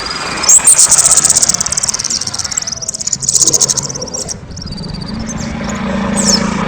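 A kemade songbird singing: a loud, very rapid high trill starting about half a second in and lasting about two seconds, a second short burst around three seconds, then short sliding notes.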